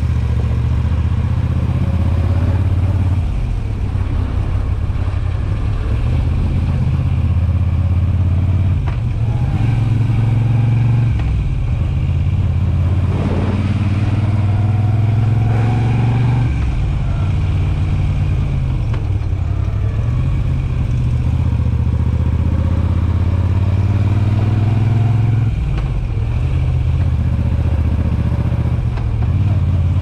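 Moto Guzzi V7 850's air-cooled transverse V-twin exhaust note through Mistral Shorts aftermarket silencers, on the move. A steady low rumble drops back and picks up again several times as the throttle is eased and reopened.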